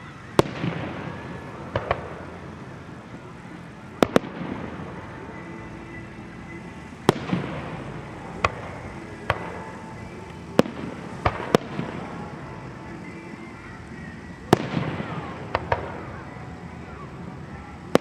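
Aerial fireworks bursting overhead: about a dozen sharp bangs every second or few, some in quick pairs, several followed by a second or two of crackling.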